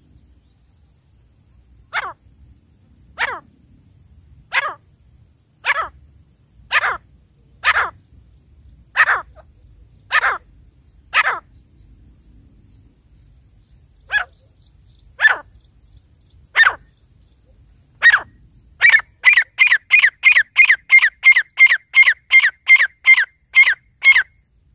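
Grey francolin calling: loud, sharp calls at about one a second, with a short pause midway. Near the end they give way to a fast, even run of short notes at about three a second.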